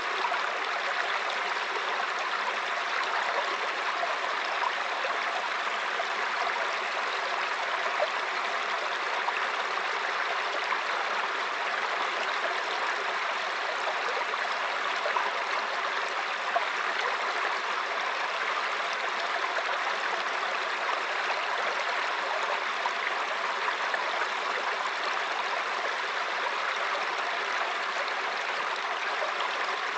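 Mountain stream flowing and splashing over rocks: a steady rushing babble with small gurgles and splashes.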